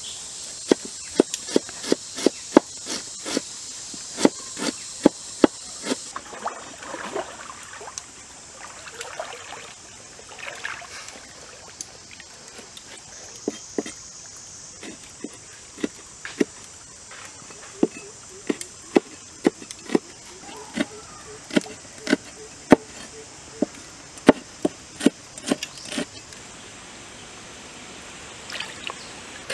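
Knife chopping on a wooden cutting board as ginger and red chilies are sliced: sharp, irregular taps about one or two a second, thinning out for a few seconds in the middle, over a faint steady high hiss.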